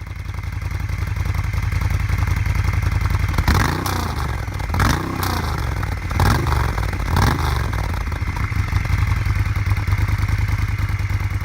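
Moto Guzzi transverse V-twin motorcycle engine idling with an even, lumpy beat, blipped four times in quick succession in the middle, each rev rising and falling back to idle.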